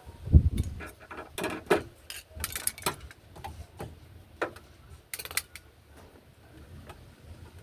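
Hand-tool work on a washing machine: a low thump about half a second in, then irregular clicks and light knocks of a screwdriver against the machine's parts, fewer near the end.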